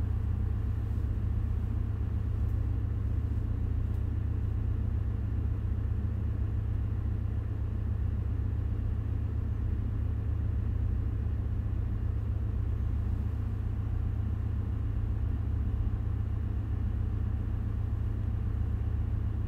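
Steady low rumble of running machinery, a continuous drone without change and without distinct tool clicks.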